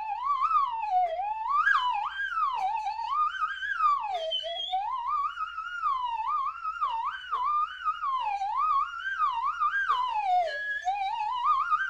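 Slide whistle swooping up and down without a break in quick, wavering glides over about an octave and a half: a comic cartoon sound effect.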